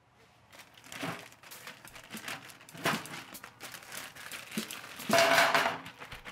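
Plastic bags being handled and crinkled in irregular rustles, loudest about five seconds in.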